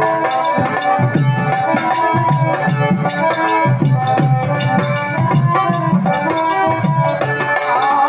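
Loud music: a regular drum beat with shaker-like percussion under held melody notes.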